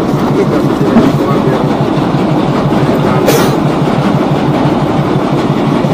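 Small wooden fishing boat's engine chugging steadily in an even rhythm, with a short hiss about three seconds in.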